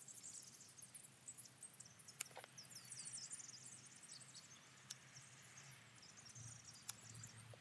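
Hand pruners (secateurs) snipping soft green pine candles: three faint, sharp clicks about two to three seconds apart. Faint high-pitched chirping runs in the background.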